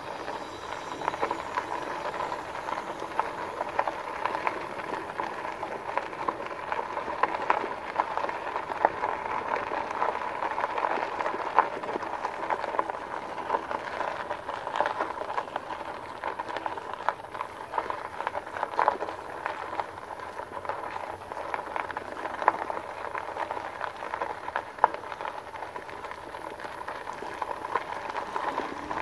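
Fat tyres of a 2018 Rad Power Bikes RadRover e-bike rolling slowly over a dirt-and-gravel path: a steady crunching hiss with many small pops and clicks from the grit under the tyres.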